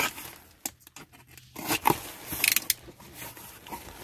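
Packaging being handled and torn open: a sharp click, a run of short snipping clicks, then crinkling and tearing about two seconds in.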